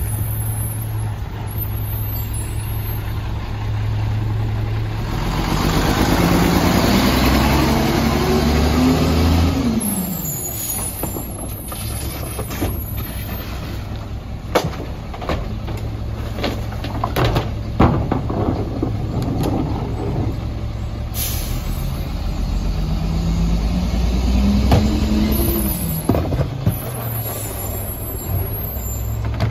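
Mack MR garbage truck's diesel engine running, revving up and back down twice, about five to ten seconds in and again near the end. Trash cans clank against the McNeilus rear loader's hopper as they are dumped by hand, and there is a short air-brake hiss about twenty seconds in.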